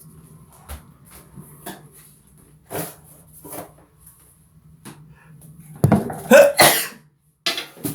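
After a few short, quiet breaths, a man sneezes loudly once about six seconds in. The sneeze is brought on by sneezing powder (chhinkni).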